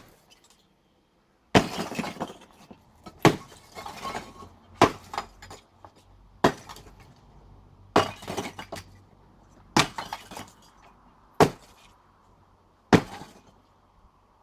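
Sledgehammer blows breaking up concrete blocks, a strike about every second and a half, each followed by a brief clatter of breaking pieces.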